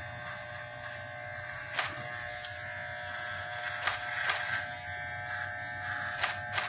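Electric hair clippers buzzing steadily as they cut through beard hair along the jaw, with a few short sharp clicks over the buzz.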